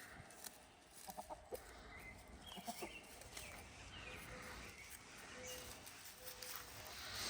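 Chickens clucking quietly a few times, with faint high chirps in between.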